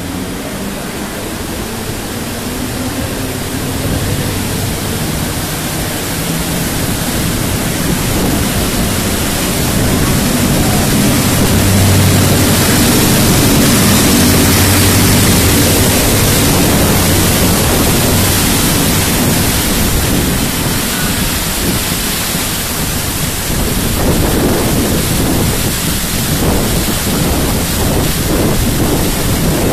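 Steady rushing and splashing of a suburban electric train wading slowly through floodwater over submerged tracks, water churning along the side of the coach. It grows louder over the first dozen seconds and stays strong after that.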